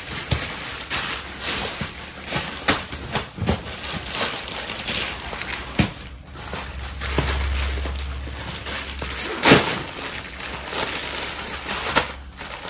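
Plastic packaging rustling and crinkling as plastic-wrapped suit packets are handled and pulled from a stack, a run of irregular crackles with a louder one about nine and a half seconds in.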